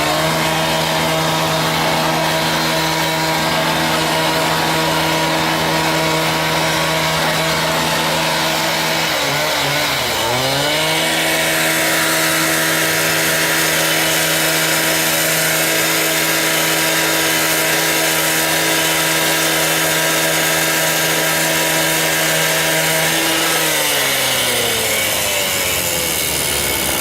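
Small engine-driven power tool running at a steady high speed. Its pitch dips briefly and recovers about ten seconds in, then falls as it slows down near the end.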